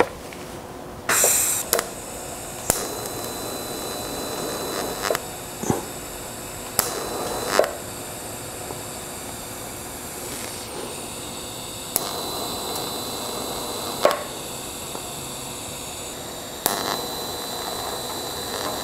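TIG welder tacking a thin sheet-metal fender seam. It makes a series of short arcs, each a steady buzzing hiss that starts and stops with a sharp click, and the two longest tacks come in the second half.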